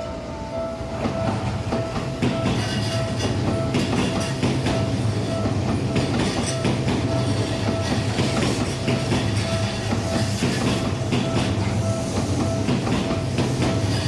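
Seibu 001-series Laview limited express train pulling into a station, its wheels clacking over rail joints with a steady rumble that grows louder about two seconds in. A steady high tone runs underneath.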